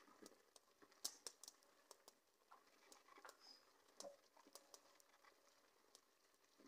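Near silence, with faint scattered clicks and pops.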